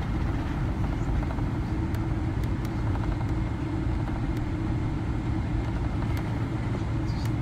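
Inside the cabin of a Boeing 777-300ER taxiing after landing: a steady low rumble from the GE90 engines at idle and the wheels rolling on the taxiway, with a few faint ticks.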